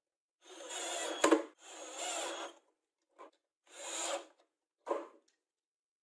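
Cordless drill driving screws through a metal wheel bracket into a wooden block, in about five short bursts with a sharp click a little over a second in.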